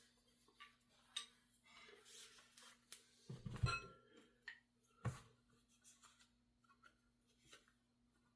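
Metal parts of a PCP air rifle being handled during disassembly: light clicks and knocks, with a louder knock about three and a half seconds in that rings briefly and another knock about five seconds in.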